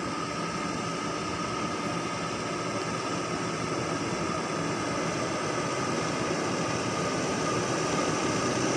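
Diesel engine of a truck loaded with acacia logs working under load as it climbs a dirt slope, a steady running sound that slowly grows louder as the truck comes closer.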